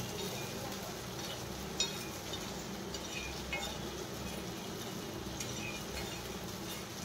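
Steady background noise with a few light clinks, the sharpest about two seconds in and another about three and a half seconds in.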